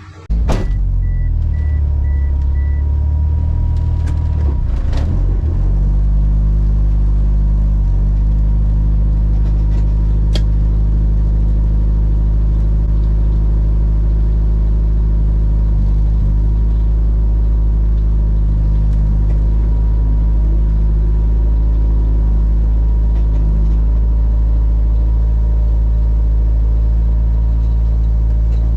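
Car engine cutting in abruptly and running at a steady, loud idle, its low tone holding constant throughout.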